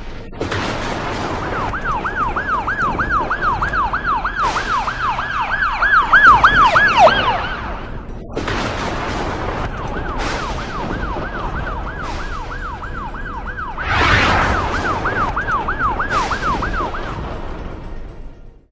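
Cartoon ambulance siren in a fast yelp, rising and falling about three times a second. It sounds for about six seconds, sagging in pitch as it stops, then starts again a couple of seconds later for another seven seconds.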